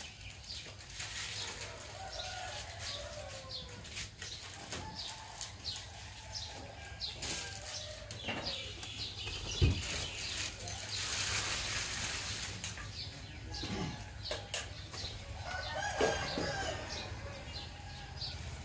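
Roosters crowing and chickens clucking, with small birds chirping throughout and a sharp knock about ten seconds in.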